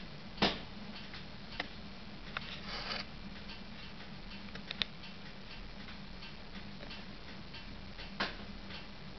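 Irregular clicks and pops from a burning wood stove as it heats, the loudest about half a second in and another near the end, over a steady low hum.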